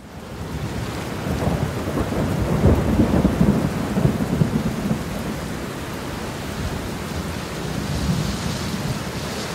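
Rain falling steadily on a wet stone terrace, with a low rumble underneath that is strongest in the first half. It fades in over the first second.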